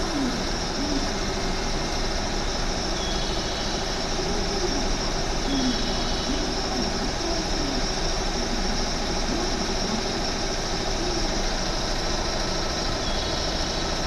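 JR 201 series electric commuter train at the station platform: a steady hum of its onboard equipment.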